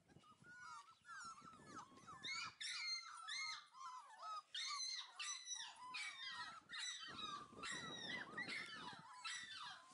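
Five-week-old Texas Heeler puppies whimpering and yipping: many short, high, rising-and-falling cries, several a second. A low rustling noise runs beneath them for a couple of seconds near the end.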